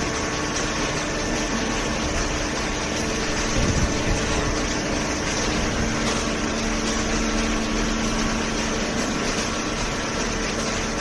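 Horizontal hydraulic cardboard baler running: a steady machine hum over a noisy rush. A lower steady tone joins about halfway through.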